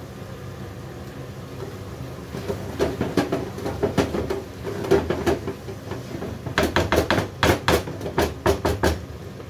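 Diced peppers tipped by hand into a frying pan of chicken and onion over high heat, with a low frying sizzle, the pieces landing with irregular knocks; then, about two-thirds of the way in, a wooden spatula stirring and knocking against the pan in quick strokes, about five a second.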